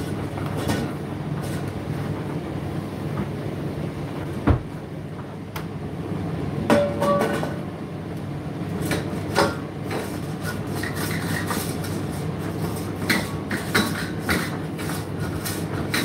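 Indesit IDC8T3 condenser tumble dryer running mid-cycle: a steady motor and drum hum with irregular knocks and clicks from the load tumbling in the drum, the loudest about four and a half seconds in.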